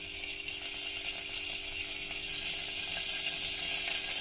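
Paneer cubes sizzling in hot oil in a pot: a steady frying hiss that grows a little louder as more cubes go in.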